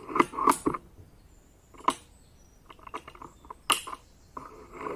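Artemis P35 air rifle being cycled between shots: a string of short metallic clicks and clacks from the bolt and a single-shot magazine, with a quick run of small clicks in the middle and sharper clacks near the end.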